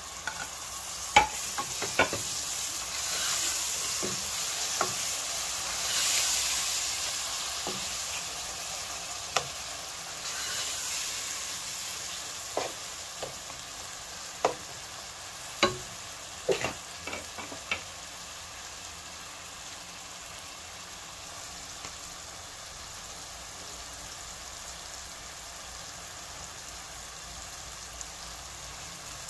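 Chopped tomatoes sizzling as they fry with onions and spices in hot oil in a pot, the hiss louder for the first ten seconds or so and then settling. A spoon stirs and taps against the pot now and then, in a cluster of clicks about halfway through.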